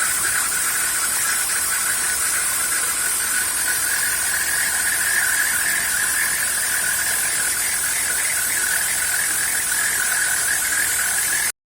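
CNC router spindle running with the end mill cutting: a steady high whine over a rough, fluttering cutting noise. It cuts off suddenly near the end.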